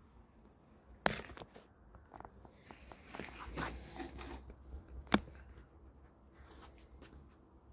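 Cardboard packaging and plastic wrap being handled: two sharp knocks, one about a second in and one about five seconds in, with rustling and scraping between them.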